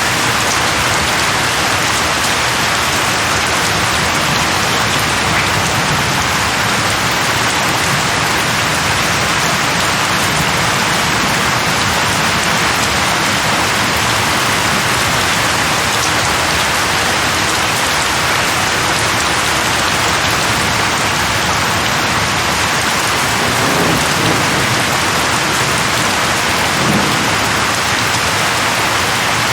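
Steady heavy rain falling on leaves, with a couple of low rumbles of thunder near the end.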